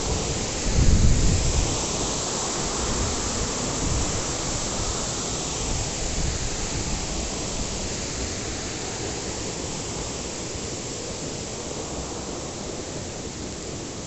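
Waterfall's steady rush of falling water, with a low rumble on the microphone about a second in; the rush slowly fades toward the end.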